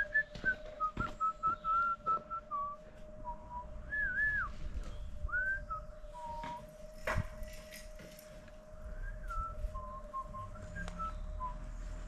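A person whistling a tune: a run of short notes and slides, with a steady hum underneath. There are a few light clicks and one sharp knock about seven seconds in.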